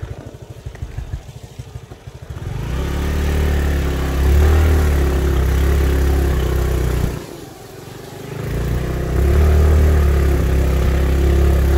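Motorbike engine ticking over with a pulsing beat, then opening up about two and a half seconds in and running loud and steady as it rides off. The throttle eases off briefly about two-thirds of the way through, then opens again.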